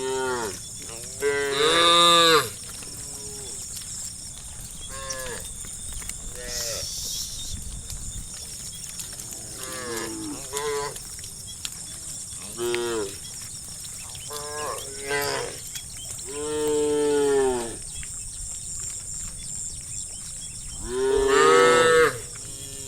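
Cattle mooing again and again, several cows calling one after another, each moo an arching call. The loudest moos come about two seconds in, around seventeen seconds and near the end.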